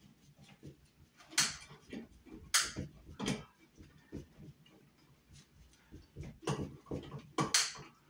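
Screwdriver working a screw on a metal conduit connector at a steel ceiling box: a run of small clicks, with five louder short metal scrapes.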